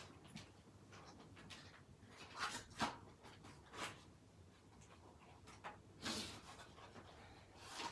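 Faint handling noise of a small cardboard box and a paper cocoa stick packet: a string of short rustles and taps, the loudest about three seconds in and about six seconds in.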